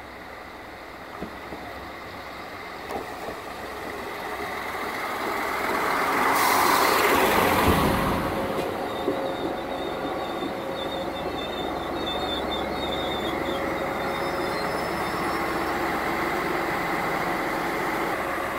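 X73500 diesel railcar pulling into the platform close by. Its engine and wheels grow louder to a peak about seven seconds in, with a brief hiss. As it slows, a thin high brake squeal comes through, over the steady low running of its diesel engine.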